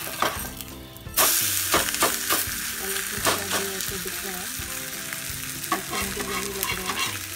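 A suji-besan cheela sizzling in oil on a hot tawa. About a second in it is flipped with a steel spatula, and the sizzle jumps suddenly louder as the raw batter side hits the hot pan, with clicks and scrapes of the spatula on the tawa.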